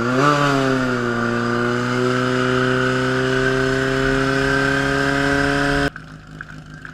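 Fire-attack competition pump's engine revving up quickly and then running flat out at a steady high speed while it draws water from the tank through the suction hose. It cuts off suddenly near the end.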